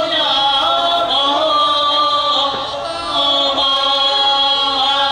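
Voices singing a chant in long held notes that change pitch every second or so, with no speech over it.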